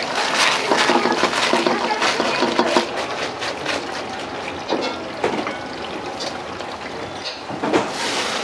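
A ladle stirring a frothy white liquid in a wok over a gas flame: the liquid sizzles and bubbles while the ladle clinks and scrapes against the wok, busiest in the first three seconds.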